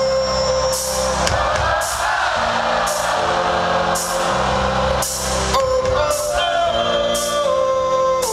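Live band music with sustained chords, a steady drum beat with regular cymbal hits, and some singing.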